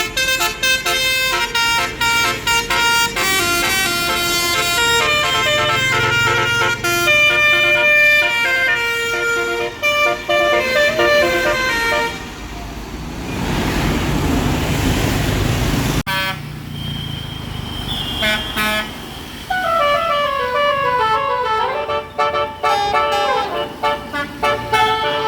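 Basuri telolet multi-tone bus air horns playing melodies, stepping quickly from note to note in runs of phrases. About thirteen seconds in the horns give way to a few seconds of rushing noise, then the horn melodies start again with runs of notes stepping down and up.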